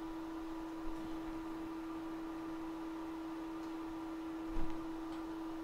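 A steady, even-pitched electrical hum from running micro-soldering bench equipment, with a soft knock about four and a half seconds in.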